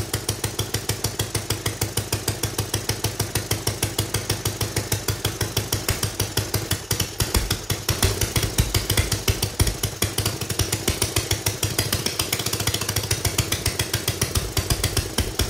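Homemade single-cylinder four-stroke engine with a metal 3D-printed block running under its own power, its exhaust beating in a rapid, even rhythm. It gets louder for a few seconds about halfway through.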